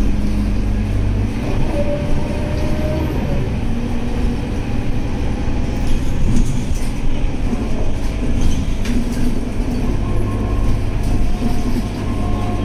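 Inside a Scania K230UB bus under way: the rear engine and ZF Ecomat automatic gearbox running steadily, with a faint whine that shifts in pitch, under road noise. A few clicks and rattles from the cabin fittings come about six to nine seconds in.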